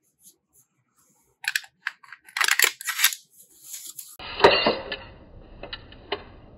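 Hands test-fitting a drilled metal speed ring onto a Godox LED light's mount, a run of scrapes, rattles and clicks of metal on plastic. About four seconds in, a steady noise starts suddenly under a few more sharp clicks.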